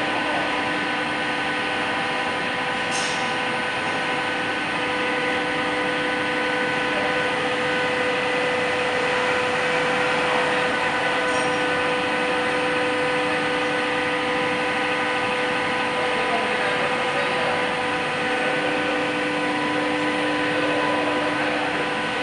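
Amutio Cazeneuve HB725 lathe running with its empty chuck spinning: a steady machine hum with several steady whining tones from the drive, holding an even speed.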